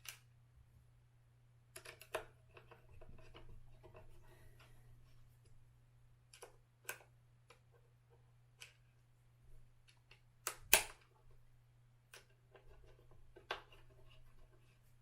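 Scattered small clicks, taps and light clatter of a screwdriver and small screws being worked into a Onewheel's front bumper and rails, with one louder knock about eleven seconds in. A faint steady low hum lies underneath.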